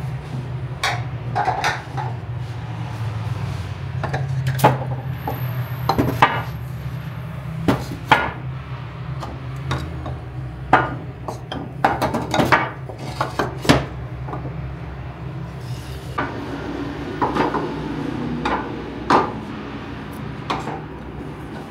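Glazed clay dizi pots being set down and shifted, knocking and clinking against one another and on a metal surface in irregular sharp knocks, over a steady low hum.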